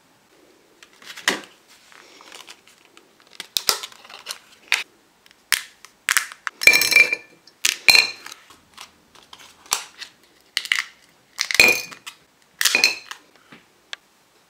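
Thin plastic candy-kit mould tray being flexed and peeled off set chocolate: about a dozen sharp, irregular plastic crackles and clicks, with light knocks on a ceramic plate.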